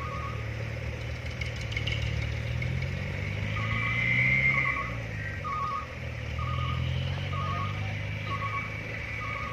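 Diesel dump truck engine running, its pitch rising and falling as it revs, loudest a few seconds in. A reversing alarm beeps once at the start, then again regularly about one and a half times a second from about three and a half seconds in.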